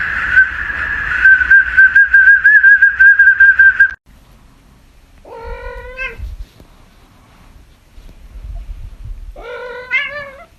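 A plastic toy whistle held in a dog's mouth gives a steady shrill tone that breaks into a fast warbling trill, then stops suddenly at about four seconds. After that a cat meows twice, about four seconds apart, each meow about a second long.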